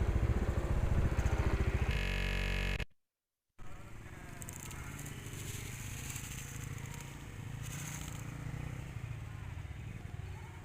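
A motor running with a fast pulsing beat, cut off abruptly about three seconds in; after a brief silence, a fainter steady low hum with hiss continues.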